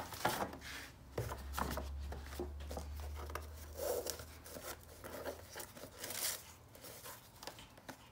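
Stiff paper and card rustling and crinkling in short, irregular bursts as a small paper shopping bag is opened, a cardboard gift box is drawn out and its ribbon untied. A low hum runs underneath from about a second in until a little past halfway.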